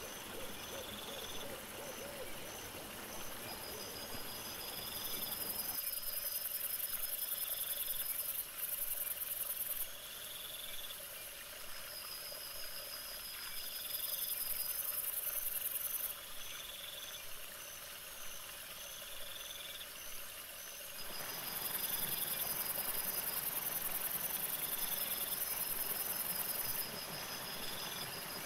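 Night-singing crickets: high pulsing trills that come and go in long spells, with short chirps repeating every couple of seconds, over steady hiss. The background changes abruptly twice as the clips change.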